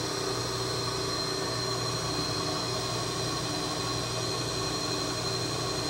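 Vertical milling machine running steadily on power from a phase converter: a steady motor hum with a thin high whine.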